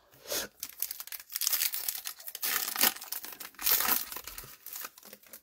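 A foil trading-card pack (Topps Showcase) being torn open and crinkled by hand: a run of crackling rustles, loudest about three and four seconds in.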